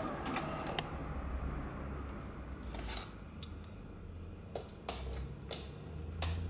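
Sony TC-K611S cassette deck ejecting: a cluster of clicks as the eject button is pressed and the cassette door mechanism springs open, then a few single clicks a few seconds later.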